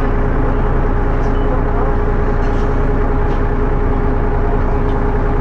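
Dennis Arrow bus engine running at a steady speed, a low rumble with a steady whine over it that neither rises nor falls.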